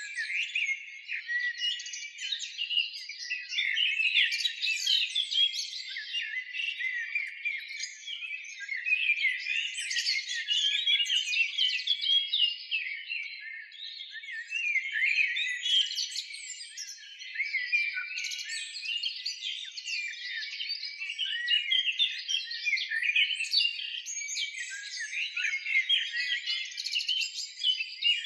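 Many small birds chirping and twittering together in a dense, continuous chorus of quick high chirps.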